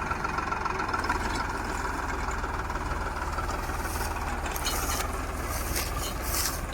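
Farmtrac 6055 tractor's diesel engine running steadily, with short metallic rattles and clicks in the second half.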